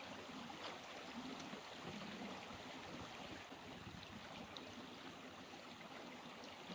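A small stream running: a faint, steady rush of water.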